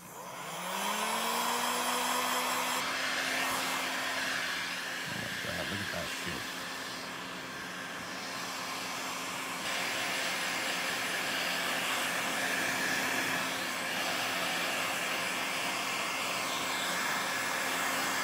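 Heat gun switched on: its motor spins up with a rising hum over the first couple of seconds, then runs steadily with a continuous blowing hiss.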